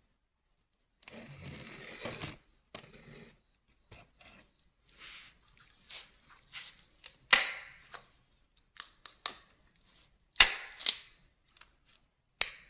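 Molded-case earth-leakage circuit breakers snapping open one after another as a live wire is touched to them in a leakage-sensitivity test, with lighter clicks and handling scrapes in between. The three sharpest snaps come about seven, ten and twelve and a half seconds in.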